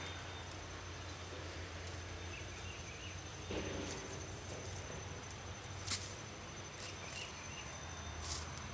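Outdoor riverbank ambience: a steady thin, high-pitched insect drone over a low rumble, with faint chirps. Two sharp clicks come about six and eight seconds in.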